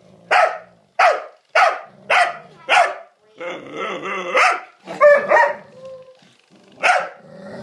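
A young dog barking over and over at an older dog, sharp single barks roughly every half second, with a short break near the middle and a last bark near the end.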